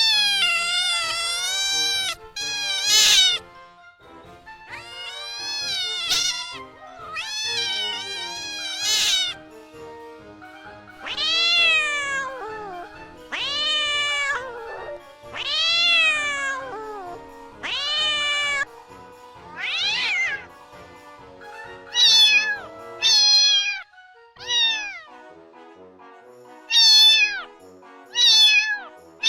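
Kittens meowing again and again, about fifteen high-pitched meows, each rising then falling in pitch, with faint music underneath.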